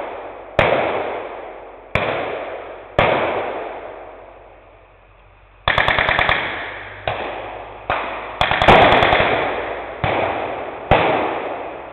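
Blank gunfire at a battle reenactment: single shots a second or so apart, each ringing out with a long echo. About six seconds in comes a rapid burst of automatic fire, about ten rounds a second, and a second short burst follows about two and a half seconds later.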